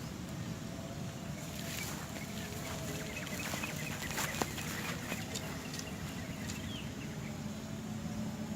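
Outdoor rural ambience: a steady low rumble with faint, short bird chirps and a few light clicks.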